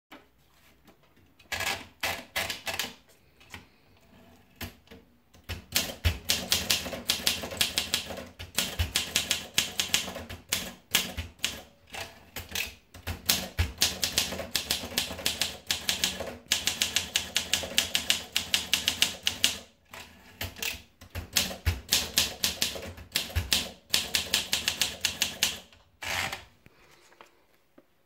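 Olympia SM2 manual portable typewriter being typed on: quick runs of sharp keystroke clacks, broken by short pauses, stopping about two seconds before the end.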